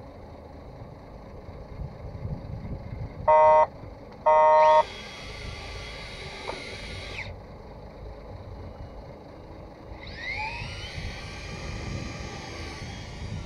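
Daiwa Leobritz electric fishing reel: two loud electronic beeps, then its motor whining as it winds line for a couple of seconds. The motor starts again about ten seconds in with a rising whine. A steady low rumble runs underneath.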